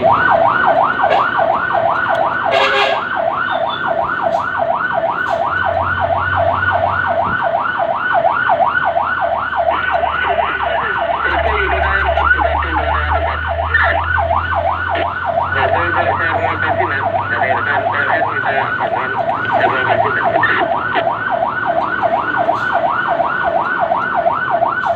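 Fire truck's electronic siren in rapid yelp, its pitch rising and falling several times a second without a break, with the truck's engine running underneath.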